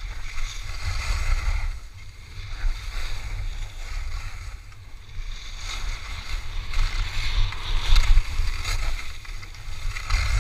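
Wind buffeting the microphone of a moving action camera, a gusty low rumble, over the hiss and scrape of skis carving on groomed snow, loudest about eight seconds in.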